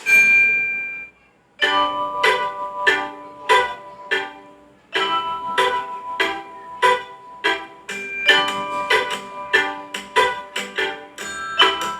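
Redmi phone ringtone: a held note fades out in the first second, then after a short gap a melody of quick, sharply struck notes starts again and loops.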